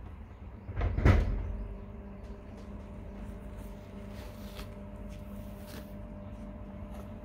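A single loud thump about a second in, like a door or cupboard shutting, over a steady low hum.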